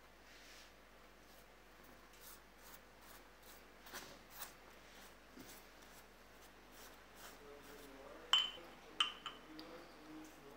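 Pastry brush dabbing beaten egg white onto crusty baked bread loaves: faint, soft brushing strokes. Near the end come two sharp clinks about half a second apart, the brush knocking against the ceramic cup of egg white.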